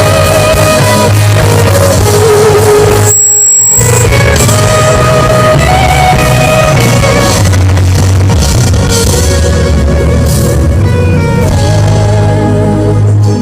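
Loud worship band music led by guitar, with no words sung. It drops out briefly about three seconds in, then carries on.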